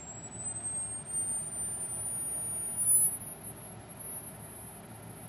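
A thin, high, teapot-like whistle from the piezo-element coil device, which sings at the function generator's drive frequency. The pitch rises slowly as the frequency is turned up, then holds steady near the end.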